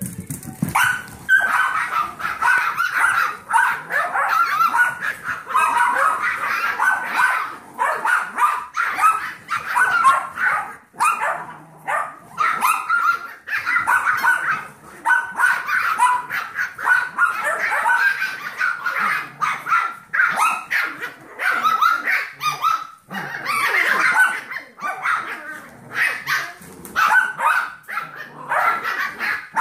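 Puppies yipping and barking over one another in play, high-pitched and almost without pause.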